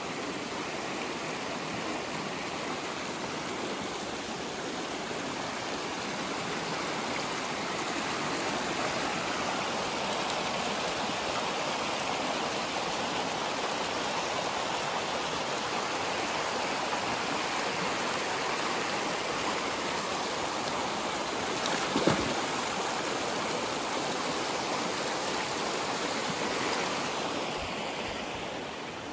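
Shallow stream rushing steadily over stones, with one short knock about three-quarters of the way through; the water grows a little fainter near the end.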